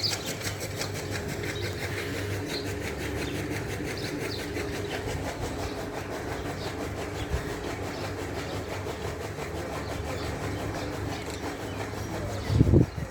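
A machine running steadily with a fast, even clatter, and a short loud low thump near the end.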